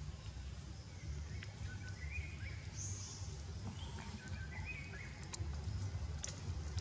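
Outdoor background noise: a steady low rumble with a few short, high chirps about two seconds in and again near five seconds, from a small animal.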